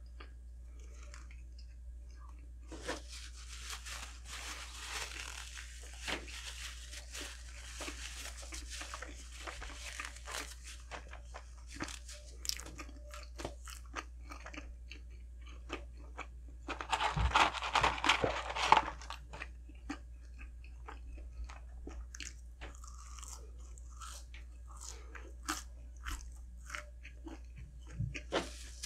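Close-miked eating of a McDonald's meal: steady chewing with crunchy bites and short mouth clicks. A louder, denser stretch of crunching comes about seventeen seconds in and lasts about two seconds.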